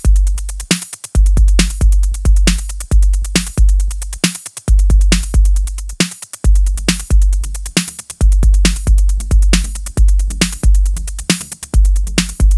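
Electronic dance music with a drum-machine beat, a kick drum about twice a second over deep bass notes.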